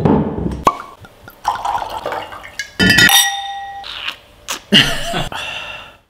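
A quick run of wine sounds: a low thump at the start, wine splashing and glugging as it is poured, and wine glasses clinking about three seconds in, ringing on for about a second afterwards.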